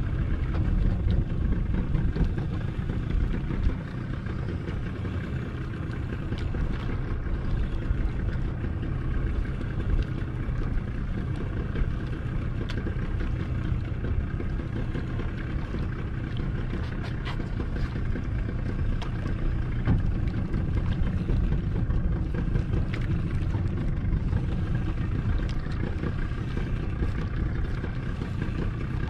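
Fishing boat's engine idling steadily, a constant low drone with no change in speed.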